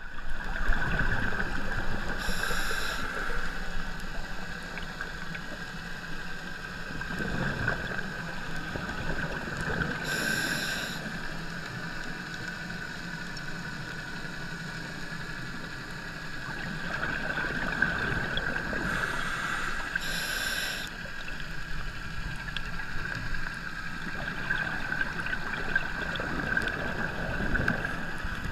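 Underwater sound of a scuba diver's regulator breathing, heard through the camera housing: a short hiss on each inhalation, roughly every eight seconds, with a low bubbling rumble of exhaled bubbles in between, over a steady hum.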